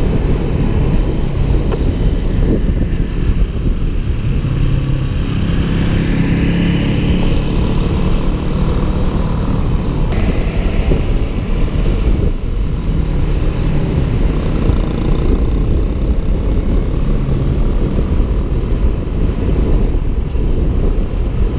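Steady rumble of road and wind noise from a moving car in traffic, with an engine humming underneath that swells a little about six seconds in and again around fourteen seconds.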